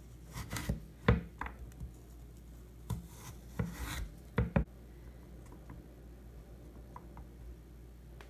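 A knife slicing a raw carrot into sticks on a wooden cutting board. The blade knocks on the board several times in the first two seconds, makes a longer scraping stroke about three to four seconds in, and knocks twice more sharply near four and a half seconds.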